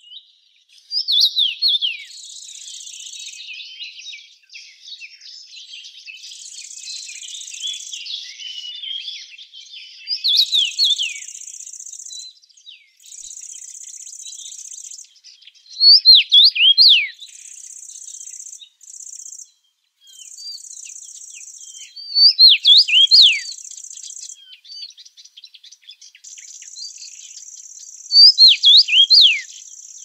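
A songbird repeats a short, loud phrase of quick falling whistles five times, about every six seconds, over softer twittering from other birds in the first half. A high, even buzz comes and goes in bursts of a second or two and runs without a break near the end.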